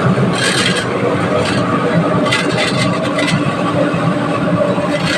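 Dacron pillow-filling machine running: a steady motor hum, with short hissing bursts every second or so.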